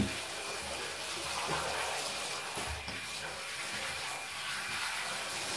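Water spraying steadily from a handheld shower head onto a wet cat's fur and the bottom of a bathtub, rinsing out the shampoo.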